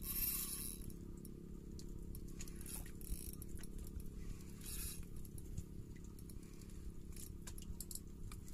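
Spinning reel being cranked against a fish on a hard-bent jigging rod, giving scattered light clicks and scrapes over a low steady rumble.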